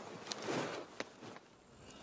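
Cow grazing close by, tearing and chewing grass: a few crisp rips and crunches over soft rustling, fading after about a second and a half.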